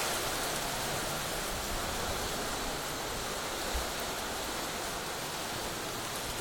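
Rain falling steadily in a downpour, an even hiss with no break.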